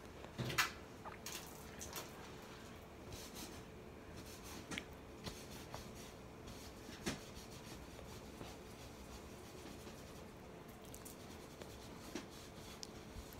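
Faint rustling and a few soft clicks and taps from a paper towel and gloved hand wiping the skin of a forearm, over a faint steady hum.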